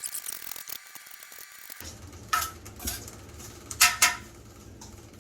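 Short, sharp scrapes and knocks of hand work inside an old cast-iron boiler: four strokes in the second half, the last two close together. They go with sludge being scraped out of it.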